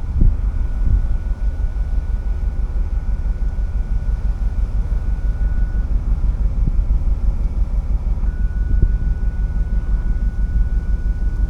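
Low, fluttering rumble of wind buffeting an outdoor microphone. A thin steady high tone runs through it, breaking off for a couple of seconds around the middle.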